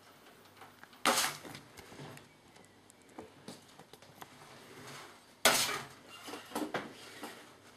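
A metal spoon knocking sharply twice against metal cookware, about a second in and again near five and a half seconds, with a few faint taps between, as hot wax is spooned over a cardboard egg box.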